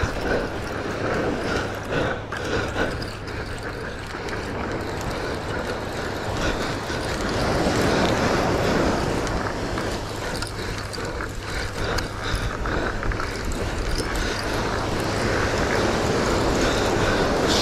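Surf washing onto the beach and wind on the microphone, swelling twice, with a spinning reel being cranked as a hooked chum salmon is reeled in.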